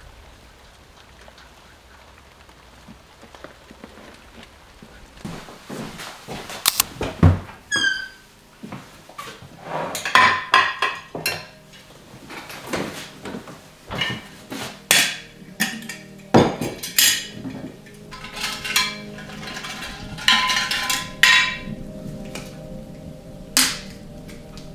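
Faint rain at first, then kitchen handling sounds: a tall swing-top glass jar being set down on a wooden table and opened, with repeated sharp knocks and glassy clinks, some of them ringing, and the dry rustle of stiff dried strips being pulled out of the jar.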